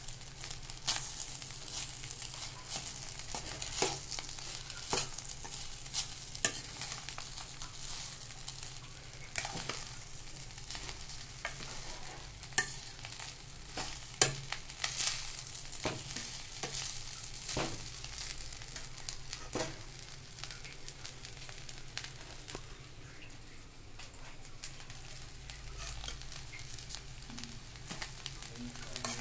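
Metal spoon stirring tempered rice in a steel pot, scraping and clinking against the pot at irregular moments over a steady frying sizzle.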